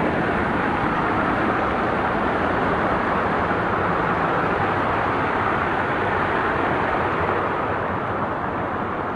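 Steady rushing roar of falling water from a waterfall.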